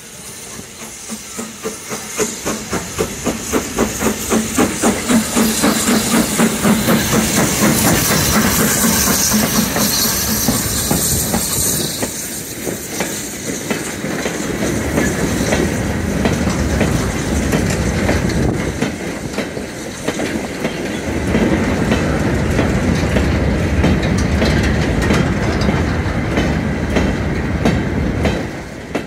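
BR Standard Class 9F 2-10-0 steam locomotive passing with loud, regular exhaust beats for the first several seconds. Then comes the steady clickety-clack and rumble of a goods train of brake van and mineral wagons rolling over the rail joints.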